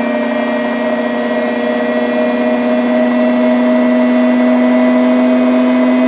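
Washing machine on a high-speed spin with its drum driven by belt and pulley, the drum at about 900 to 1000 RPM and still speeding up toward its 1200 RPM maximum. It is a steady motor whine made of several held tones, all rising slightly in pitch.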